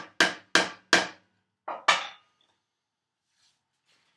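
Wooden mallet striking a chisel as it chops out a mortise in wood: six sharp blows in about two seconds, the last two after a short pause.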